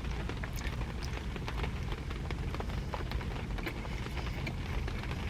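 Rain falling on a car's roof and windows, heard from inside the car: a steady hiss with many scattered drop ticks.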